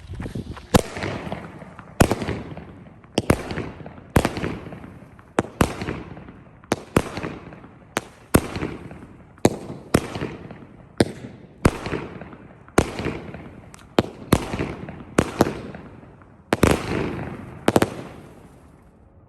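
Winda Silent Power low-noise 200-gram horsetail cake firing its shots in steady succession: a thump about every second, each followed by a fading crackle of the breaking horsetails. A louder, longer burst comes near the end.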